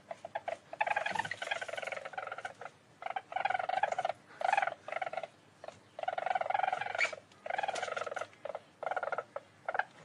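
A weasel giving rapid trilling chatter in a run of short bursts, each up to about a second long, with brief pauses between them.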